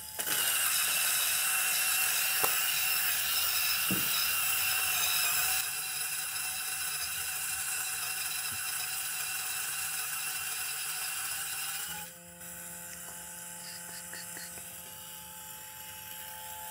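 MHW-3Bomber Sniper electric conical burr grinder milling a 17 g dose of coffee beans at an espresso setting: a steady motor whine under a loud grinding of beans. The grinding thins out about six seconds in and stops around twelve seconds. The motor then spins empty and winds down near the end.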